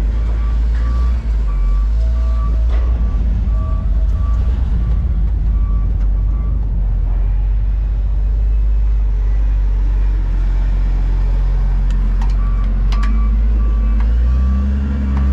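Vehicle backup alarm beeping about twice a second over the steady low rumble of a heavy engine running. The beeping stops about six seconds in and starts again near the end, where a few sharp metallic clicks sound.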